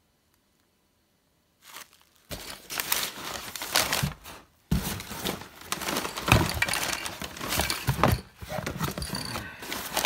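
Black plastic mailing bag being handled and crumpled, starting about two seconds in: a dense crinkling and rustling with sharp crackles, broken by a brief pause.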